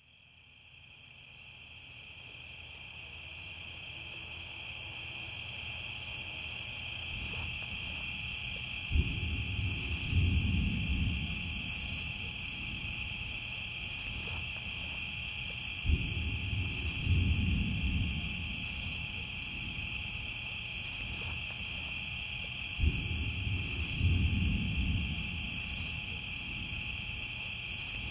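A steady chorus of chirping insects, like crickets at night, fading in from silence. A deep rumbling swell, each opening with a sharp thump, rises over it three times about seven seconds apart.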